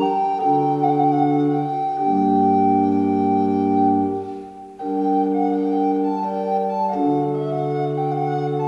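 Church pipe organ playing slow held chords with a flute melody above it. The music fades and breaks off briefly about four and a half seconds in, at the end of a phrase, then resumes.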